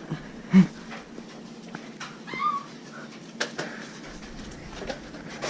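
A pet dog making short vocal sounds: a brief yelp about half a second in and a short whine midway. A few sharp clicks follow.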